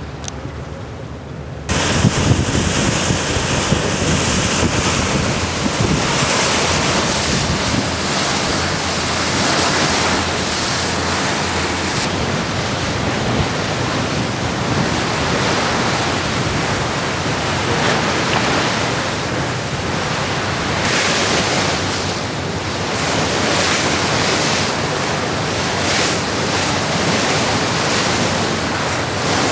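Wind rushing over the microphone on a moving ferry's open deck, mixed with the churn of water in the ship's wake. The noise jumps louder about two seconds in and then stays steady.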